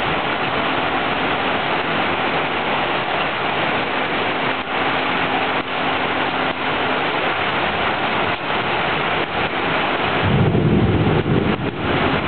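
Heavy rain pouring down steadily in a thunderstorm, with a loud low rumble of thunder about ten seconds in.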